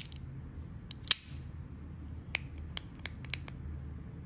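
Handheld fidget clicker being pressed and worked by hand: about eight sharp, short clicks at uneven spacing, some in quick pairs.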